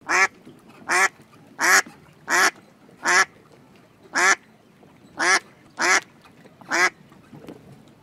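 A duck quacking: nine short quacks, about one every three-quarters of a second.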